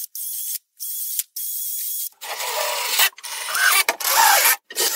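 Cordless drill running in several short bursts, drilling into the plywood edge of a side panel. The first bursts are thin and high-pitched; the later ones are fuller and louder.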